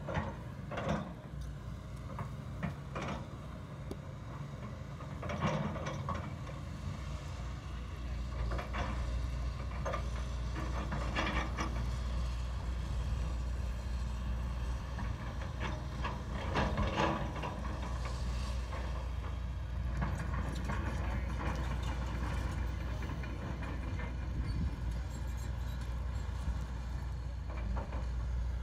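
Hitachi Zaxis 200 hydraulic excavator working: its diesel engine runs with a steady low drone, getting louder about a third of the way in, under irregular clanks and scrapes as the bucket digs dirt and the tracks move over the ground.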